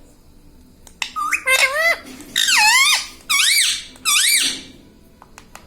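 Rose-ringed (ring-necked) parakeet vocalising: four loud, high-pitched calls, each sweeping sharply up and down in pitch, in quick succession. Faint rapid clicks follow near the end.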